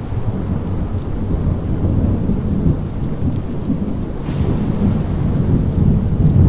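Thunder rumbling over steady rain, the low rumble swelling and rolling on, with a second swell near the end.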